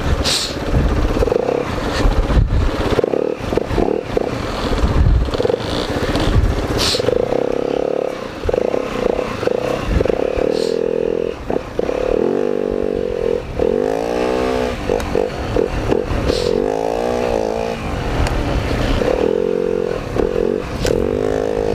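Dirt bike engine being ridden on a rough trail, the revs rising and falling again and again as the throttle is worked, with scattered clattering and scraping knocks.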